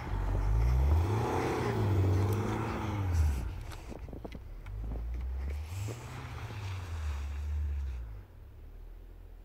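Range Rover Evoque's engine revving, its pitch rising and falling several times as the SUV drives through deep snow. It fades as the car pulls away, rises once more about six seconds in, then drops off suddenly near the end.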